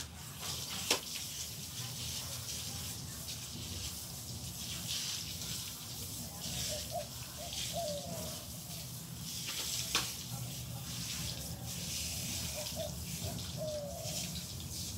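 Water from a garden hose spraying onto a dog's coat and splashing on wet concrete, a steady, changing hiss. Two sharp clicks, about a second in and again near ten seconds.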